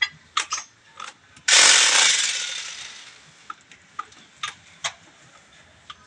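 Paint sprayer hissing in one sudden burst about a second and a half in, fading away over the next second and a half, with scattered sharp clicks and taps before and after it.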